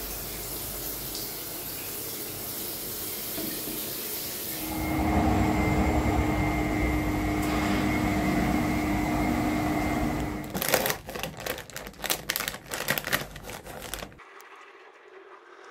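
Water running with a steady hiss. About five seconds in it grows louder, with a steady hum, and then cuts off abruptly about ten seconds in. A few seconds of irregular clicks and rustles follow.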